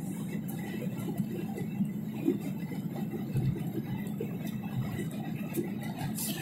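Steady low rumble of a jet airliner's cabin on final approach, with the engines and the air over the extended flaps, and a few faint ticks of trim rattling.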